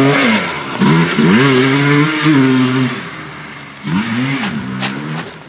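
Single-cylinder ATV engine revving as the quad rides off, the pitch climbing, holding and dropping several times, fading after about three seconds.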